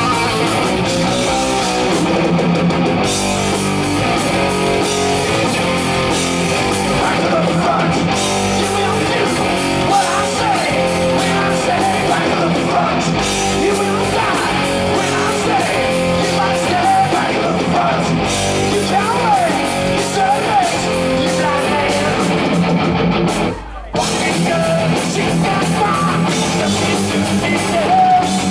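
Live heavy metal band playing loud, with distorted electric guitars and a drum kit. The band stops dead for a split second about two-thirds of the way through, then crashes back in.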